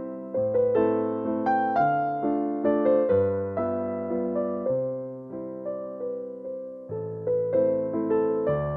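Background music: a gentle piano piece, notes struck one after another and left to fade over low bass notes.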